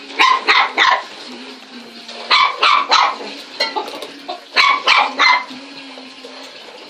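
A dog barking at a vacuum cleaner: three quick barks, then two more sets of three a couple of seconds apart. A steady low hum runs underneath and stops shortly before the end.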